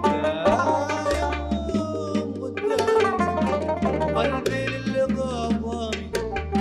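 A male voice sings a Yemeni song to his own oud playing, with plucked notes, percussion and a low bass line that steps from note to note beneath.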